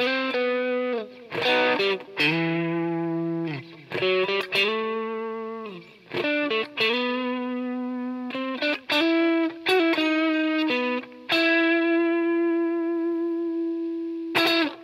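Stratocaster electric guitar through an IDEA-TSX ver.2, a TS808 Tube Screamer-style overdrive pedal, giving a lightly overdriven tone. It plays a lead line of picked single notes with string bends and slides, ending on one long sustained note.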